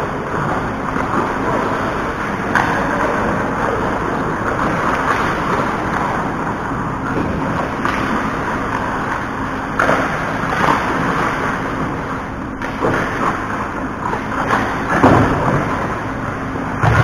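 Ice hockey play on a rink: a steady wash of skates on the ice and the arena's noise, broken by several sharp clacks and knocks, the loudest about fifteen seconds in, over a low steady hum.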